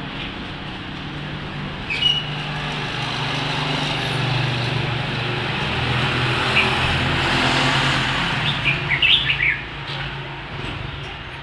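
Passing traffic noise that swells and then eases, with a wild bird's short chirps about two seconds in and a quick run of chirps near the end.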